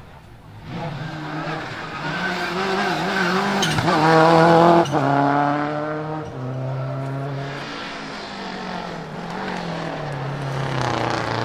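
Rally car engines at full throttle passing close by. One engine rises to its loudest about four to five seconds in, then drops through stepped pitches as the car moves away. Near the end another car's engine builds again.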